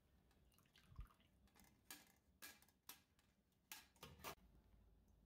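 Faint scattered ticks and drips, about seven in all, as a stainless chinois strainer is lifted out of a glass bowl and stock drips back into it.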